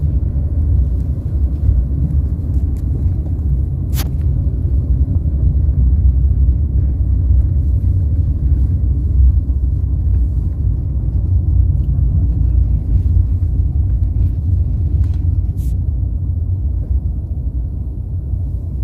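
Doha Metro train running, a steady low rumble with a sharp click about four seconds in.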